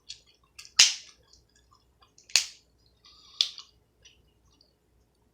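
Crab shells cracking by hand: three sharp, loud snaps spread over about three seconds, with smaller clicks and crunches of the shell between them.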